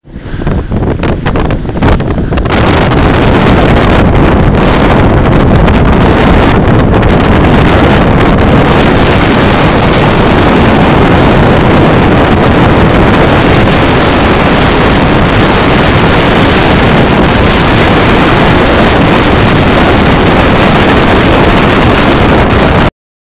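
Loud, steady wind noise on the microphone aboard a sailboat under way in a fresh breeze, with the rush of waves along the hull.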